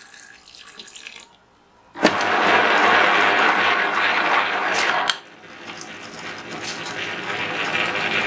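Tabletop wet grinder churning soaked idli rice and water between its stone rollers. A loud wet rushing noise starts suddenly about two seconds in, drops around five seconds, then builds again.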